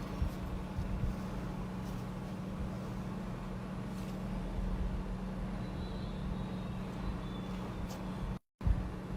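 Steady low hum with background rumble and a few faint clicks, broken by a brief cut to silence near the end.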